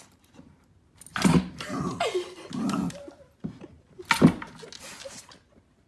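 A dog knocking against a wooden peg board as it snaps at pop-up pegs: a few sharp knocks, the loudest about four seconds in, with a short pitched sound in between.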